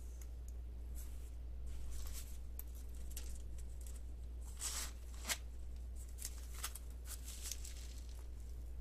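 Soft rustling, scraping and small clicks as a zip-around key case is handled and its zipper run open, louder for a moment about five seconds in.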